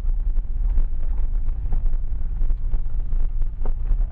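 Vehicle cabin noise while driving slowly: a steady low engine and road rumble, with wind buffeting the microphone.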